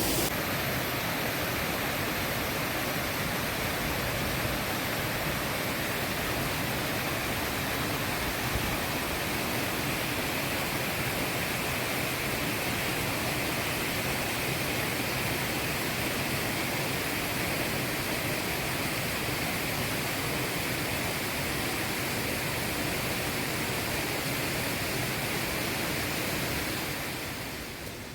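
Waterfall: a steady rush of falling water that drops away a second or so before the end.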